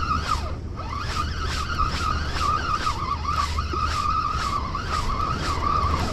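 Spinning reel being cranked steadily to bring in hooked fish, a wavering squeaky whine with light ticking about three times a second, over a low rumble of wind and surf.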